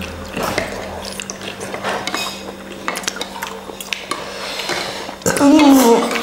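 Cutlery clinking and scraping against a soup bowl in a run of scattered clicks, with some stirring of liquid. Near the end, a brief loud vocal sound falling in pitch.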